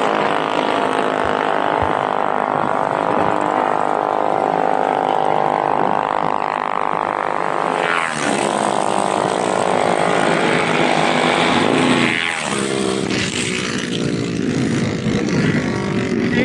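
Mini bike engines running loud and steady, their pitch dipping and rising again about halfway through and once more near three quarters of the way in, as the throttle is worked.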